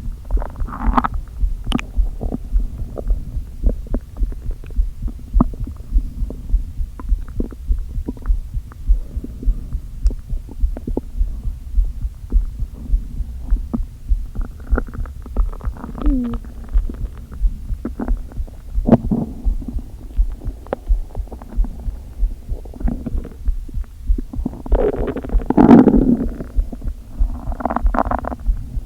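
Hungry, empty stomach growling and gurgling, a day without food. Irregular rumbles rise and fall over a steady low pulse that beats a little faster than once a second. The loudest, longest rumble comes near the end, with another shortly after.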